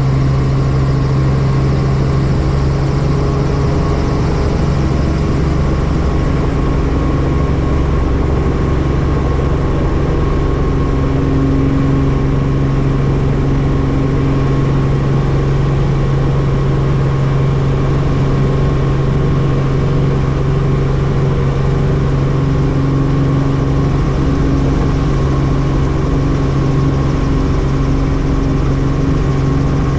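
Helicopter running steadily: a loud, even drone of engine and rotor with a strong low hum that does not change.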